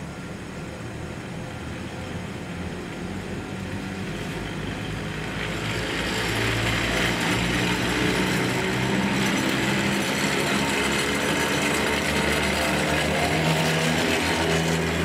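Sangi Railway ED45 electric locomotives with nose-suspended (axle-hung) traction motors, hauling a freight train past at speed. The traction motors make their characteristic undulating gear whine in several wavering tones over wheel and rail noise, which grows louder about six seconds in as the lead locomotive draws level.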